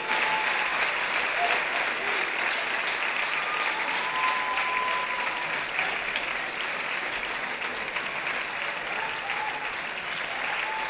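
Audience applauding steadily in a hall, with a few voices calling out over the clapping; the applause eases off gradually toward the end.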